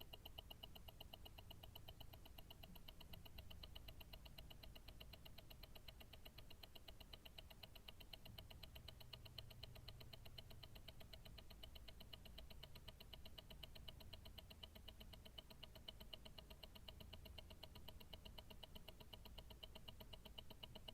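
Invicta Grand Octane tourbillon watch movement ticking, picked up through a stethoscope: a faint, rapid, perfectly even tick of the escapement, over a low rumble.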